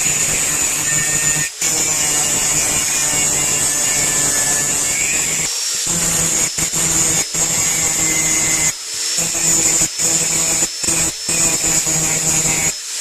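Harbor Freight 90 amp flux-core wire welder arc crackling and sputtering with a steady low hum, cutting out briefly about four times. The small welder is struggling on the thick steel of a railroad spike.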